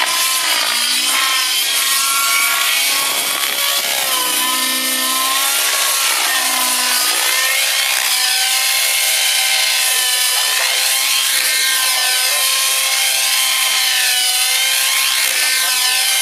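Align T-Rex 700 radio-controlled helicopter flying 3D aerobatics. Its engine and rotor blades give a loud, high-pitched whine whose pitch keeps swooping up and down with the manoeuvres.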